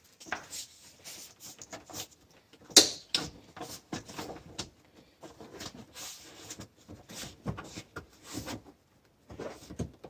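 Handling noise of someone working on a side-by-side door: a scattered run of small clicks, knocks and rustles, with one sharp knock about three seconds in.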